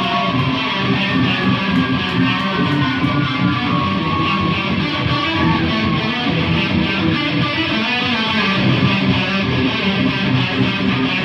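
Live rock band playing loudly: electric guitars, bass and drums in a dense, continuous wall of sound.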